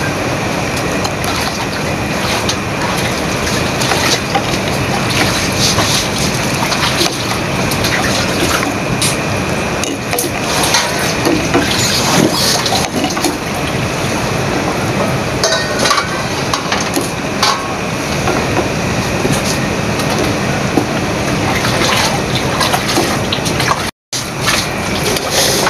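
Metal ladle stirring a simmering soy-and-ketchup marinade in a stainless steel saucepan: liquid sloshing with scattered light clinks of the ladle against the pot, over a steady rushing background noise.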